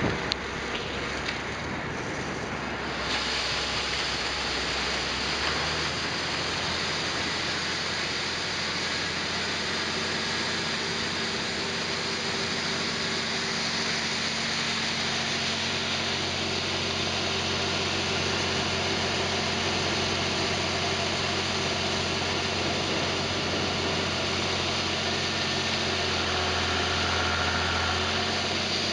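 A farm machine's engine running steadily, with a couple of short knocks in the first two seconds.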